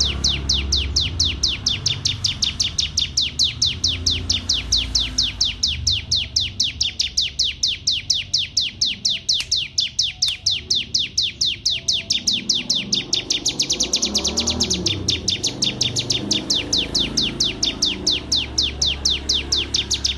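Canary singing one long unbroken trill of fast repeated notes, each sweeping downward in pitch, about six a second.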